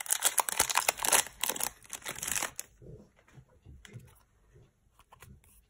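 Foil wrapper of a Pokémon trading-card booster pack crinkling and tearing as it is ripped open by hand. After about two and a half seconds it turns much quieter, with only faint light handling sounds.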